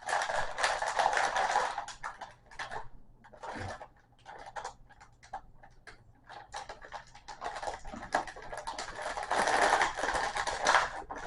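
Packaging being handled: crinkling and rustling with many small clicks. It is busiest in the first second or so and again near the end, with scattered clicks between.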